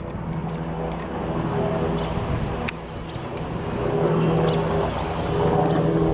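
Aircraft engine drone, a steady hum that grows louder in the second half, with short faint high chirps recurring above it.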